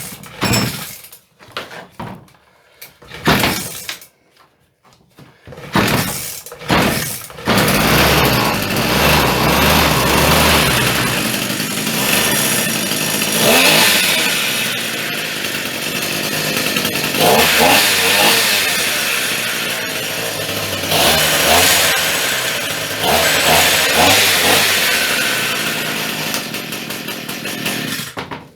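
Gardencare petrol strimmer's small two-stroke engine being pull-started: a few short bursts as it fires, then it catches about seven seconds in and runs, revved up and back down several times, before it cuts off near the end. It is running on a new spark plug; the old plug was the fault.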